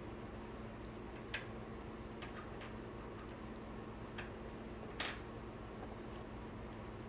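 A few small, sharp clicks and ticks of the plug's parts and tools being handled while the white wire is fitted to the silver screw of a replacement extension-cord plug, the loudest about five seconds in, over a faint steady hum.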